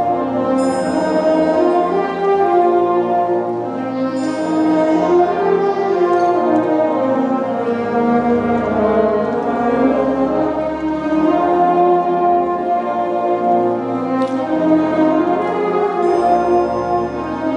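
Full orchestra playing live, brass and strings together in long held chords that change every second or two.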